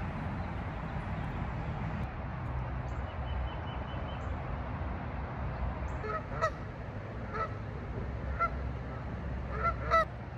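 Geese honking: several short honks in the second half, the loudest cluster near the end, over a steady low rumble of riding noise.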